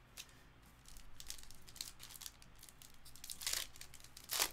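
Foil wrapper of a baseball card pack being torn open and crinkled, a run of rustling with a few sharper rips, the loudest near the end.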